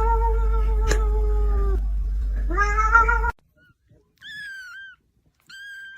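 A cat's long drawn-out meow, slowly falling in pitch, then a second meow rising until it cuts off. After it come two short, softer, much higher-pitched meows that fall at the end.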